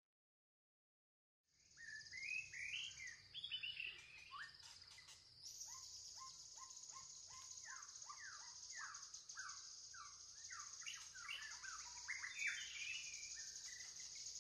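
Recorded outdoor nature ambience: many birds chirping in quick, repeated falling notes over a steady high hiss, starting about a second and a half in after silence.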